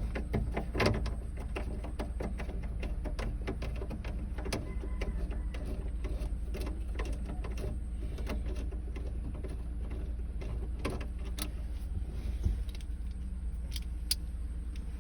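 Steady low machine rumble with many small irregular clicks and taps, the loudest just after the start and again about twelve seconds in.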